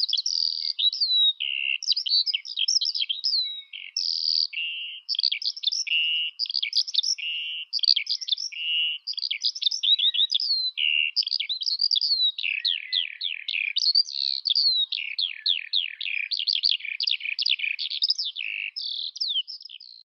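Eurasian skylark singing its long, unbroken song: a fast, never-pausing stream of trills, chirps, slurred whistles and buzzy notes.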